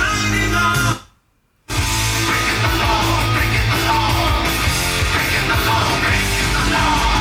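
Rock-style music playing. It cuts out for well under a second about a second in, then starts again.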